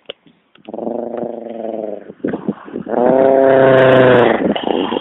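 A man's vocal imitation of a dog, made with his mouth: a drawn-out growl lasting about a second, then a louder, longer one starting about three seconds in.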